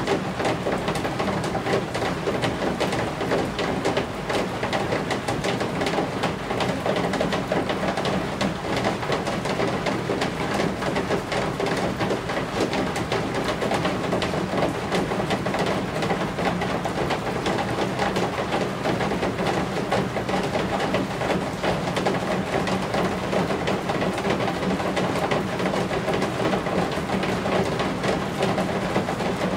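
Steady rain falling on roof eaves: a constant wash of water with a dense run of small drop impacts, even in level throughout.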